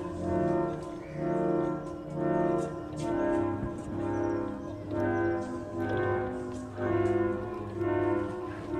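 Brass-like music: a repeating phrase of held chords that swell and fade about once a second.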